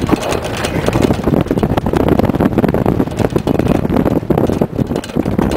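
Off-road vehicle driving over a rough dirt trail: the engine running under a dense clatter of knocks and rattles from the jolting body, with wind buffeting the microphone.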